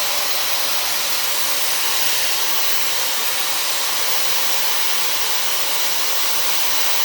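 Dyson hair dryer with a diffuser attachment running steadily on its lowest heat setting: a constant, even hiss of blown air.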